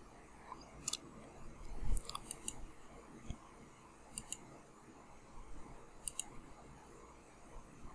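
Computer mouse button clicking several times, the clicks mostly in quick pairs, over faint room noise with a soft low thump or two.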